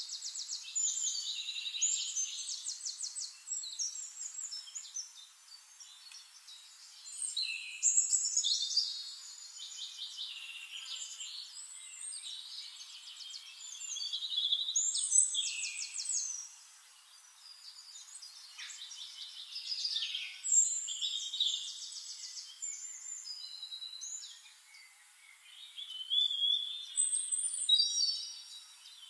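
Songbirds singing in bouts every six or seven seconds, each a run of fast, high-pitched trills and whistles.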